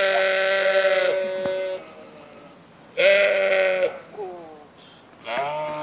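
Ewe bleating over her newborn lamb: three steady, pitched bleats, a long one at the start, a shorter one about three seconds in, and another beginning near the end.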